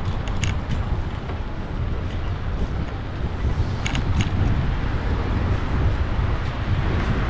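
Steady low rumble of a moving vehicle, with a few light rattles near the start and again around four seconds in.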